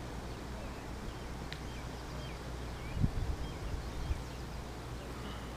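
Birds chirping faintly over a steady low hum, with a few dull knocks about three and four seconds in.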